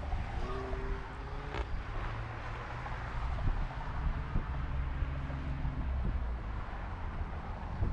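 2018 Ford F-150 pickup running with a steady low hum, and a single sharp click about a second and a half in.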